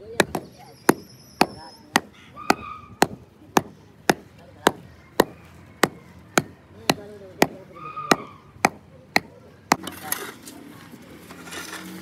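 A hand-held wooden beater pounding clods of dry soil on bare ground to crush them to powder, a sharp knock about twice a second. The knocking stops near the end and is followed by a rougher scraping, as a spade is pushed through the loose soil.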